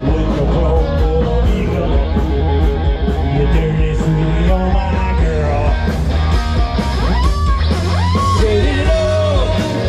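Live rock band playing through outdoor PA speakers: guitars over a strong bass, with a singer's voice in the second half.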